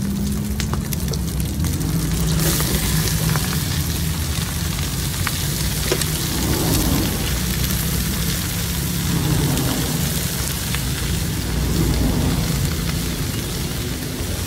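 Food sizzling and frying on a hot pan or grill; the hiss gets louder about two seconds in and then holds steady over a low hum.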